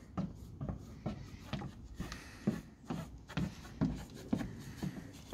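Soft, irregular knocks and scuffs of shoes against the wooden planks of a climbing tower as an abseiler walks backwards down the wall, about two or three steps a second.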